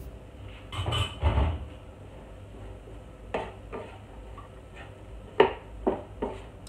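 Wooden spoon stirring and knocking against a nonstick frying pan as butter is worked into caramelized onions. A cluster of knocks comes about a second in, then a few sharp separate taps, the loudest about five and a half seconds in.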